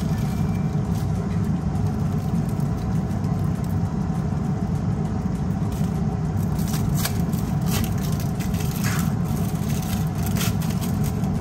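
A steady low mechanical hum over the stove, with plastic wrapper crackling a few times in the second half as cheese slices are peeled out of their wrappers.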